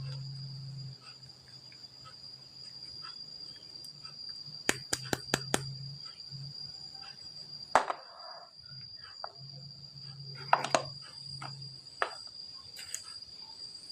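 Sharp clicks and clacks of plastic toy figures and packaging being handled, coming in quick clusters about four seconds in, near eight seconds, around ten and a half seconds and at twelve seconds. A steady high-pitched tone and an on-off low hum run beneath them.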